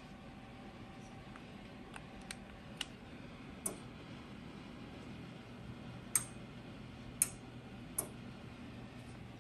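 Sharp ticks as the electric fireplace's touch-control panel is pressed, about seven in all, the loudest in the second half. Under them is the steady low hum of the heater fan, still blowing after the heat has been switched off.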